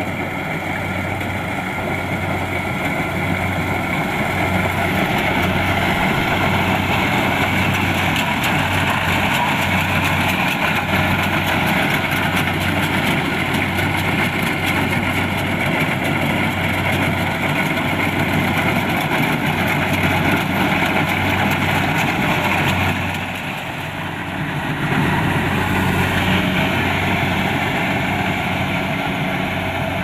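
Kubota DC-70 Plus rice combine harvester running steadily while it cuts rice: its diesel engine and threshing machinery keep up a continuous hum. It dips briefly quieter about three quarters of the way through, then comes back up.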